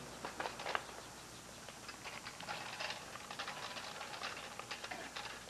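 Light, irregular clicking and rattling as a gas-powered lawn edger is wheeled across a driveway with its engine not running. A cluster of clicks comes in the first second, then scattered ones.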